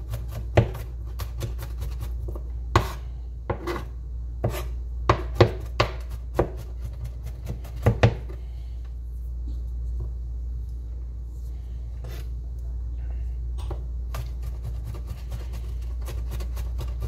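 Chef's knife mincing garlic on a plastic cutting board: quick, irregular chops of the blade against the board. The chopping goes thick for about the first half, then thins to a few light taps for several seconds, and picks up again near the end. A steady low hum runs underneath.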